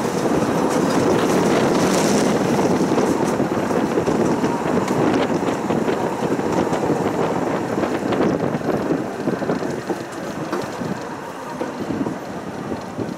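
Tram running along its track, heard from on board: a steady rumble of wheels on rails mixed with rushing air, easing off and getting quieter after about eight seconds.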